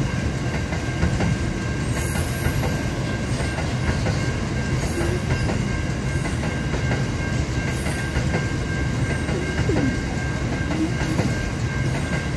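Aurizon minerals freight train passing, its wagons rolling by in a steady low rumble with a faint, thin steady whine above it.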